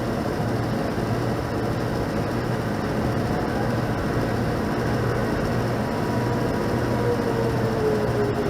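Outdoor tornado warning sirens sounding under a steady noisy rumble, with a faint siren tone that falls slowly in pitch near the end.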